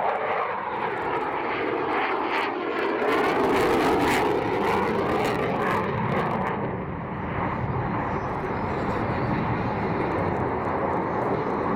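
F-22 Raptor's twin F119 turbofans running in afterburner as the jet flies past and banks away, a loud, continuous jet roar. About two to three seconds in it takes on a sweeping, whooshing tone, and it is loudest around four seconds in.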